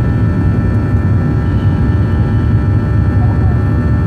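Cabin noise of a Boeing 737-800 in flight, heard from a window seat over the wing: its CFM56-7B turbofan engines and the airflow make a steady low rumble, with several steady whining tones above it.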